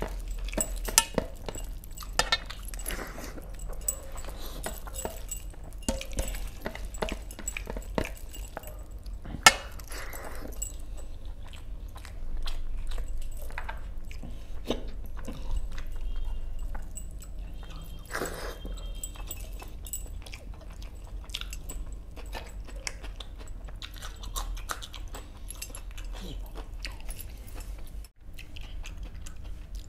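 Close-up eating sounds: a hand squishing rice and fish curry together on a metal platter, with chewing and scattered sharp clicks of metal rings and bracelets against the plate. One click about nine and a half seconds in is louder than the rest.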